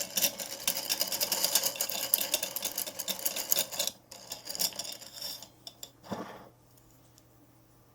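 Rapid, dense jingling rattle, as of small metal objects shaken by hand, thinning out about four seconds in and stopping after about six and a half seconds.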